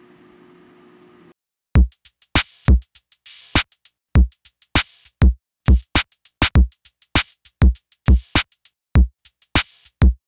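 Faint room hum, then about a second and a half in an electronic drum-machine beat starts: deep kick-drum thumps and sharp crisp hits in a steady pattern of roughly two a second.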